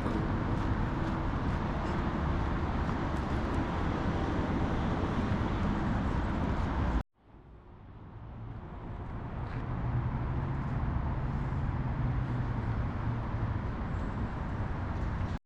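Steady road traffic noise from nearby streets. It cuts out abruptly about seven seconds in and fades back up, with a low engine hum from a passing vehicle in the second half.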